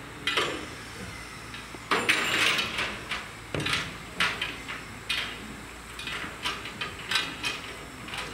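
Irregular metallic clanks and knocks as a railway water column's arm and hose are swung over and put into the tank filler of GWR pannier tank locomotive 1501 for taking on water. About a dozen strikes, the loudest and ringing one about two seconds in.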